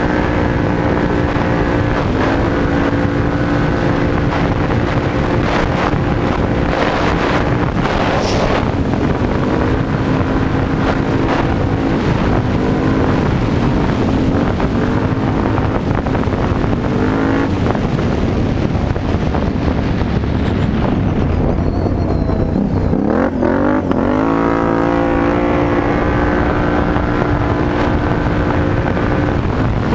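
Can-Am Renegade 850 XXC quad's Rotax 850 V-twin through a Yoshimura aftermarket exhaust, under way on a dirt track. The revs rise sharply and then hold steady several times as the throttle is opened, and ease off about twenty seconds in before climbing again. Wind buffets the microphone throughout.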